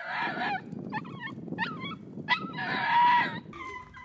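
A dog giving a run of high, wavering whining cries, the longest and loudest near the end. A low rumbling noise runs under the cries until shortly before the end.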